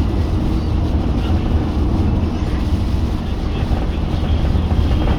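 Steady low rumble of a car driving at speed on a motorway: engine, tyre and road noise.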